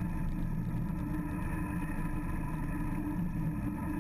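Outboard engine of a rigid inflatable boat running steadily at speed, with the rush of water and wind over it.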